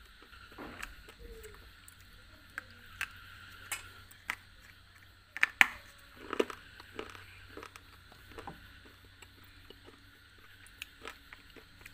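Close-miked biting and chewing of a hard, chalky white bar: scattered sharp crunches and snaps, the loudest a cluster about five and a half to six and a half seconds in.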